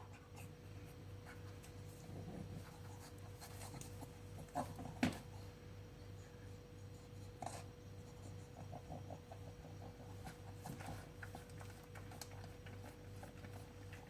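Faint scuffling, rubbing and soft clicks from a pug moving about, over a steady low electrical hum.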